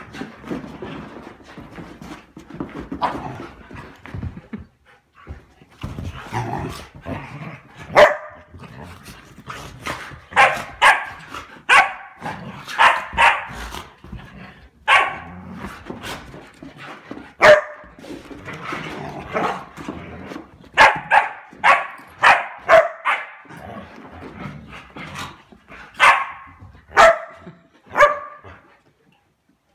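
Dogs play-fighting, with short sharp barks coming in quick runs of two to four, starting about a quarter of the way in and continuing almost to the end.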